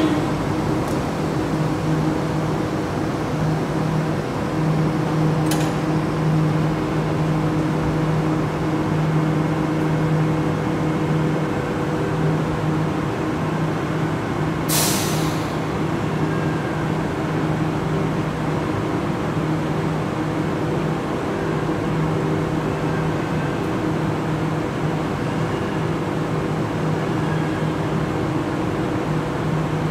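Sydney Trains double-deck electric train standing at the platform, its on-board equipment humming steadily with a few low tones. About halfway through, a short burst of hiss.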